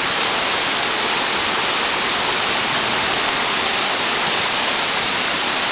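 Steady rush of creek water pouring over rocks, an even hiss with no breaks.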